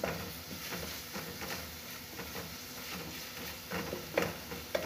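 Wooden spoon stirring and scraping frying onion and tomato paste around an aluminium pot, over a low sizzle. The scrapes and taps come irregularly, with a few louder knocks against the pot near the end.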